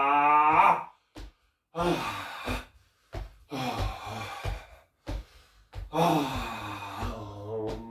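A man's held, open-mouthed vocal tone breaks off under a second in, followed by about four loud deep breaths, gasping inhalations and sighing exhalations, with short silences between them. The last breath carries a little voice that slides down in pitch. It is the breathing of a bioenergetics release exercise.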